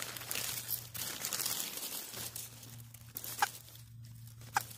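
Rustling and crinkling of a camouflage rain jacket and bag, with dry leaves crunching, as someone shifts about on the ground for about two seconds. It then goes quieter, with three short sharp taps near the end.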